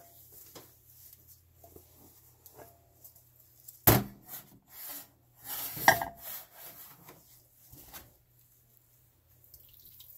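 Kitchen handling noises: two sharp knocks about two seconds apart near the middle, with rubbing and shuffling between them, as bowls and the crock-pot insert are moved about on the counter.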